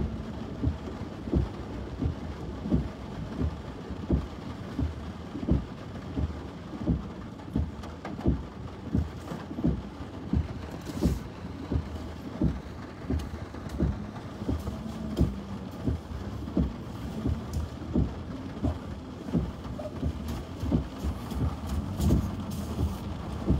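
Car driving slowly through a flooded street, heard from inside the cabin: a steady mix of engine and water noise. A regular knock repeats about one and a half times a second over it.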